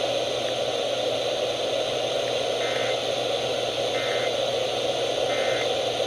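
FM weather radio putting out steady static hiss, with three short faint warbling data bursts about a second apart in the second half, the pattern of the SAME end-of-message code that closes an emergency alert.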